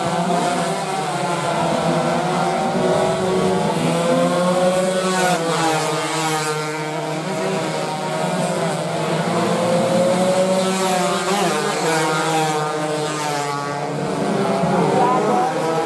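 Several stock 116 cc two-stroke underbone racing motorcycles revving hard at full throttle, their overlapping engine notes repeatedly rising and falling in pitch as they accelerate and pass.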